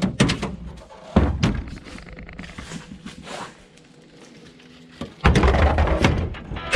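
A few dull thuds and knocks, then a louder stretch of rough, rumbling noise near the end.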